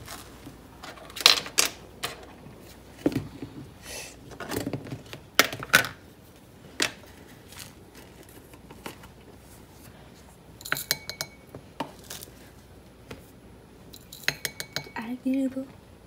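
Scattered clicks, knocks and clinks of kitchen handling: a plastic container of rolled oats opened and its lid set down, and oats measured into a ceramic bowl. Near the end come a few ringing clinks of a utensil against a dish.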